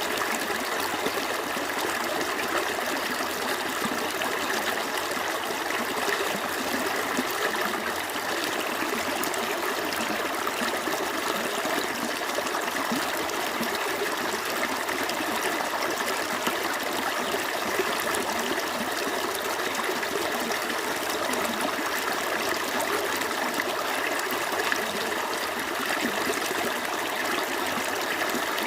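Small stream flowing steadily over rocks: continuous running and trickling water with a fine bubbling texture.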